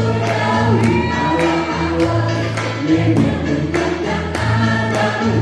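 A mixed choir of men and women singing over music that has a low bass line and a steady beat of sharp hits about twice a second.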